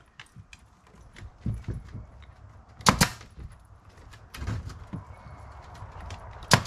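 Pneumatic nail gun firing twice, about three and a half seconds apart with the second near the end, driving nails down through weathered wooden porch floorboards. Lighter knocks come between the shots.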